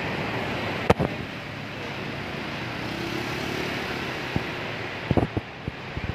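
Steady traffic noise with a motor scooter and a van passing close by, the van's engine hum swelling and fading midway. A sharp click about a second in and a few short knocks near the end.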